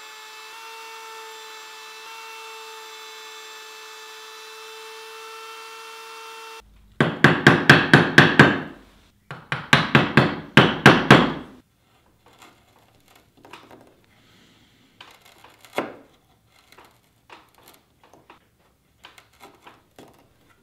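Mallet striking a woodworking chisel, chopping a rabbet in wood: two quick runs of about seven sharp blows each, roughly five a second, followed by faint taps and scrapes of the chisel paring out the waste. Before the blows, a steady hum cuts off suddenly.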